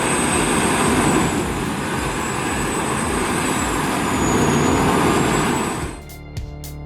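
CBI Magnum Force 6400 CT industrial wood grinder running under load, its rotor shredding logs into mulch: a loud, dense mechanical noise with a thin high whine over it. About six seconds in it gives way to background music.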